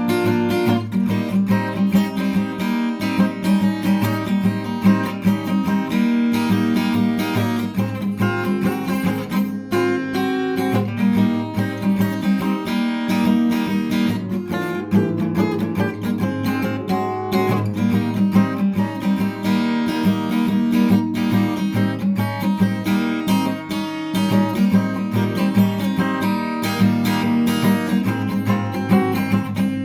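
Background music: acoustic guitar strumming and picking at a steady rhythm.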